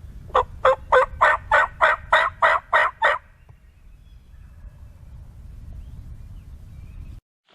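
A series of about ten evenly spaced turkey yelps, roughly three and a half a second, lasting about three seconds, over a low rumble.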